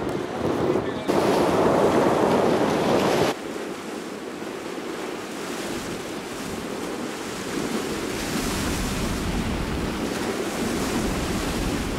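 Sea waves washing and splashing against a rocky shore, with wind. The first three seconds are louder and rougher, with wind buffeting the microphone, before the sound settles into a steadier surf hiss with a low rumble.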